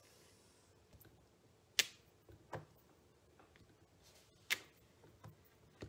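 Clear acrylic stamp block tapped down onto card stock on a tabletop while stamping: two sharp taps about three seconds apart, with a few fainter taps between.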